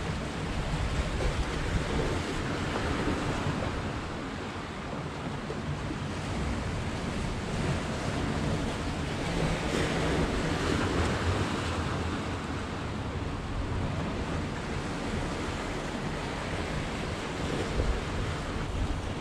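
Sea surf washing over the rocks, with wind buffeting the microphone. The wash swells and fades, loudest near the middle.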